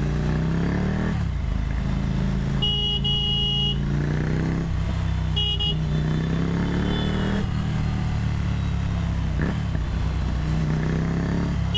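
Ducati Monster 797's 803cc air-cooled L-twin engine running on the move, its pitch climbing and dropping with the throttle and gear changes. A vehicle horn honks for about a second roughly three seconds in, and briefly again a couple of seconds later.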